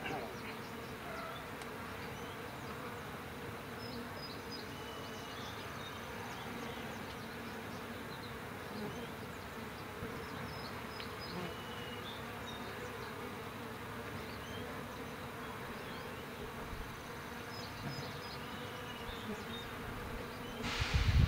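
Honeybees buzzing steadily around a Langstroth hive entrance. Near the end a loud low rumble starts.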